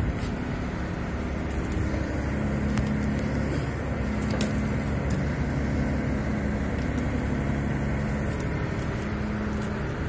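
Ship's engine running with a steady low drone, with a few light clicks over it.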